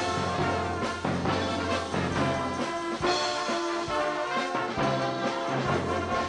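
Brass band music, with trombones prominent playing sustained notes over regular percussion strokes.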